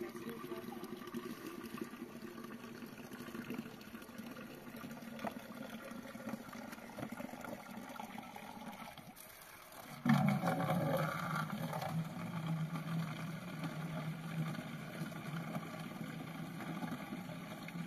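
Spring water trickling and splashing from a spout among rocks. About ten seconds in it becomes louder, with a steady low note in the running water.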